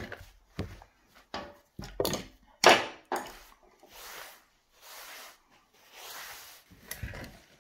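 A handful of sharp knocks and clunks as things are handled on a metal worktable, the loudest just under three seconds in, then a rag wiping the metal table top in three long rubbing strokes, with one more knock near the end.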